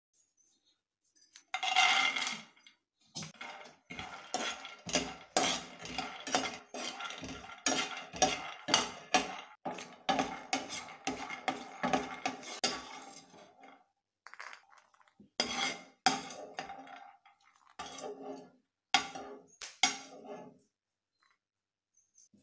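Peanuts being roasted in a dry nonstick frying pan and stirred with a spatula: quick clicks and rattles of nuts against the pan and spatula. The stirring pauses about two-thirds of the way through, resumes in a few short spells, and stops a couple of seconds before the end.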